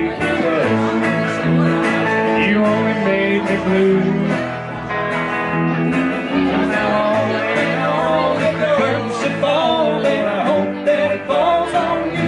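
A small live band plays an upbeat country-style number: electric guitar, a plucked upright bass and a second guitar.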